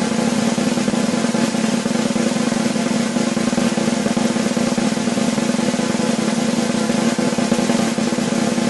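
Snare drum roll, a fast continuous roll held at an even, steady level without a break.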